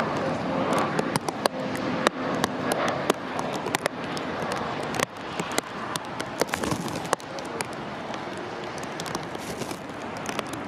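Steady rushing noise of an Airbus A320neo's jet engines as it lands, easing off about halfway through, with many sharp crackles over it throughout.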